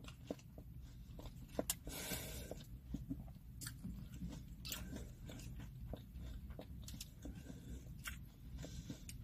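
A person chewing and biting into crunchy Doritos Locos tacos, faint, with scattered small crunches and mouth clicks.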